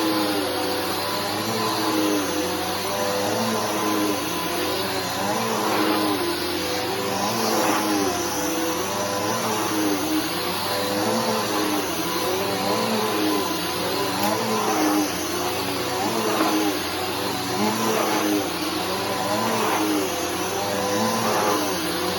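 Bissell Powerforce Helix upright bagless vacuum cleaner running steadily with a motor whine, its lower sound wavering up and down in pitch about once a second as it is pushed back and forth.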